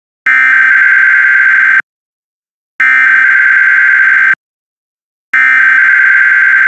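Emergency Alert System SAME header: three identical bursts of digital data screech, each about a second and a half long with about a second of silence between, opening an EAS test alert.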